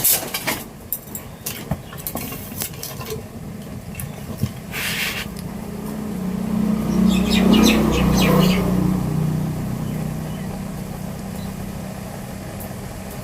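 A motor vehicle passing by, its engine hum swelling to a peak about eight seconds in and then fading away. A few sharp clicks come in the first seconds, and a short hiss about five seconds in.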